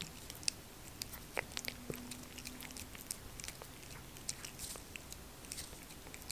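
Tabby cat licking purée treat from an Inaba squeeze tube: faint, quick, irregular wet licking clicks, several a second.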